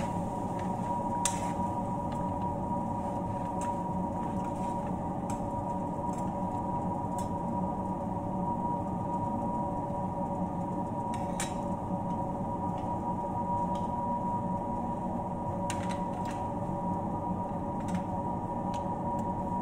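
A steady mechanical hum, with a dozen or so light, scattered clicks of a metal ladle against a frying pan as the food is stirred.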